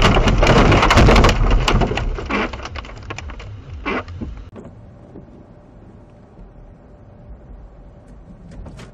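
A car crashing in snow: a loud rumble with a rapid clatter of sharp knocks and crackles, dying away over about four seconds. A quiet, low, steady vehicle hum follows.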